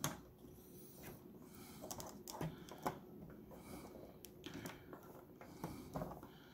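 Faint, irregular small clicks and taps of hard plastic parts being handled: a clear plastic support rod being fitted by hand to a PVC figure's staff.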